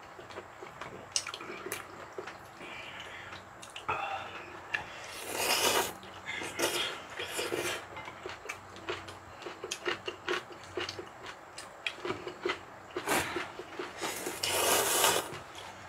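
People eating ramen: noodles and broth slurped in three louder bursts about a second long, among many small clicks of chopsticks and spoons and chewing sounds.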